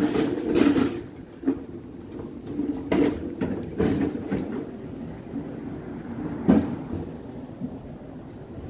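Wheels rolling over cobblestone paving: a steady low rattle, broken by a few sharp knocks from bumps, the loudest past the middle.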